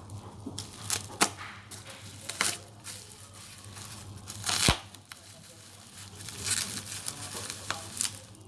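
Packaging being handled and torn open: plastic or paper tearing and crinkling with scattered sharp clicks, and one sharp knock about halfway through.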